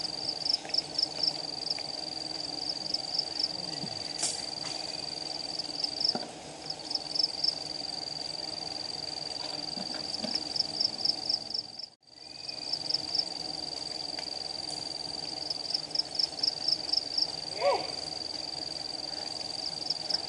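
Dense buzzing hum of a swarm of giant honey bees (Apis dorsata) around a nest being harvested, with a high, steady insect whine over it broken by repeated runs of quick chirps. The sound drops out briefly about two-thirds of the way in.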